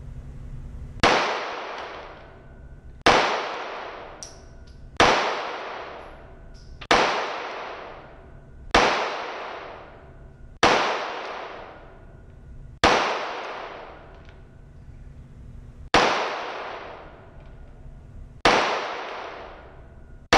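Handgun fired in slow, deliberate single shots, nine in all at about two-second intervals, each sharp crack echoing and dying away over about a second in an indoor range. A fainter crack falls between the first few shots.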